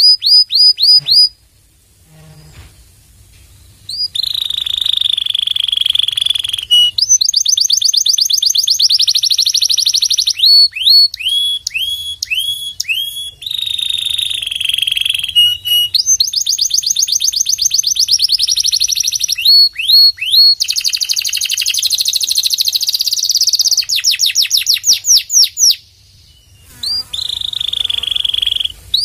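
Domestic canary singing: phrases of rapidly repeated sweeping whistled notes alternating with fast, buzzy trills. The song pauses briefly about a second in and again near the end.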